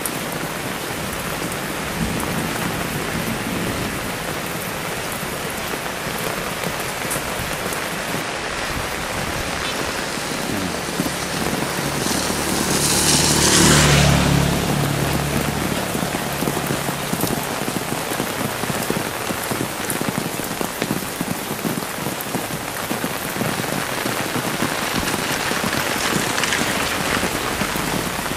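Heavy rain falling steadily. About twelve seconds in, a louder swell of noise builds and fades over two or three seconds.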